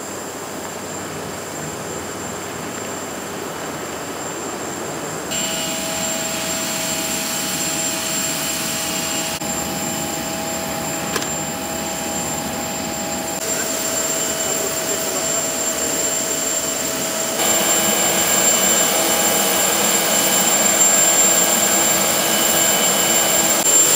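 Jet aircraft turbine running steadily on the apron: a continuous rushing noise with a high steady whine. The level jumps up and down abruptly a few times, and there is a single short click a little past the middle.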